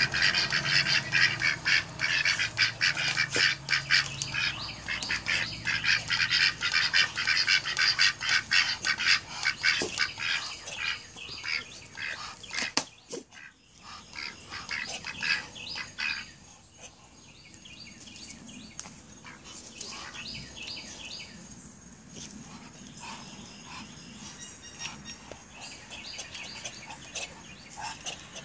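Domestic ducks quacking in a rapid, continual run for about the first sixteen seconds, then dropping to fainter, scattered calls.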